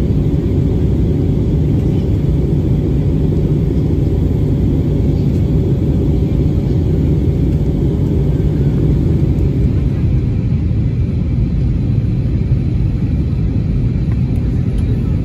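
Steady cabin rumble of an Airbus A320neo in descent, engine and airflow noise heard from a window seat, with a faint steady hum above the low roar.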